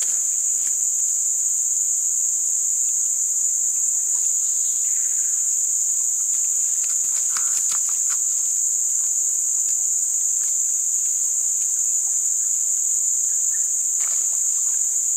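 Steady, high-pitched drone of an insect chorus, with a few faint short clicks and rustles.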